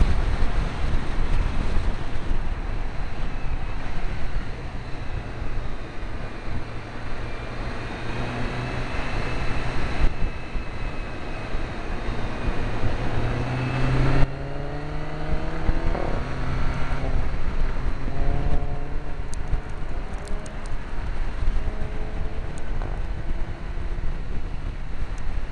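Mk5 Volkswagen Golf GTI's turbocharged 2.0-litre four-cylinder at full throttle on a race track, heard from a bumper-mounted camera under heavy wind buffeting on the microphone. The engine note climbs steadily under acceleration, drops sharply at an upshift about fourteen seconds in, then climbs again in shorter pulls.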